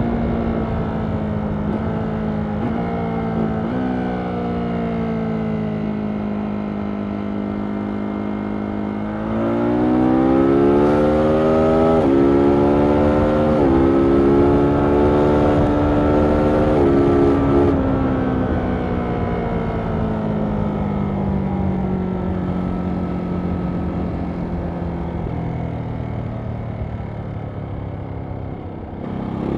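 2023 Ducati Monster SP's 937 cc L-twin engine and exhaust at speed, with wind rush. The engine note winds down off the throttle with two quick jumps up in pitch in the first few seconds, then opens up louder and climbs at about nine seconds with a brief drop about three seconds later, before easing off again and winding down slowly for the last ten seconds.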